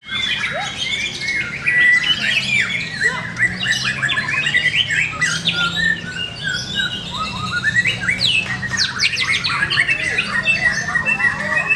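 White-rumped shama (murai batu) singing a loud, continuous, varied song of whistles, slurred glides and rapid runs of notes, at the full volume looked for in contest birds.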